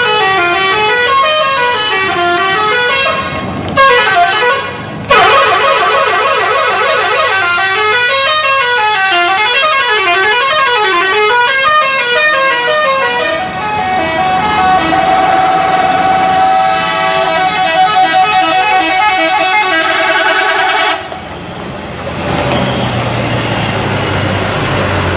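Bus 'telolet' multi-tone air horns playing a quick up-and-down melody, broken twice near the start. After about 13 seconds the tune changes to steadier held chords. It stops about 21 seconds in, leaving a quieter low rumble.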